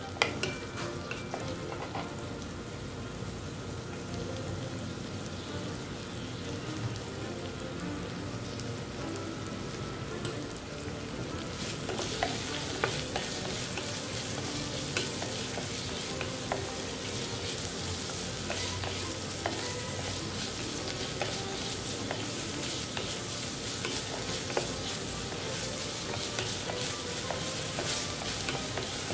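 Sliced onion and garlic sizzling in hot olive oil while a wooden spatula stirs and scrapes them around an enamelled pot, with scattered clicks of the spatula against the pot. The sizzle gets louder and brighter about halfway through.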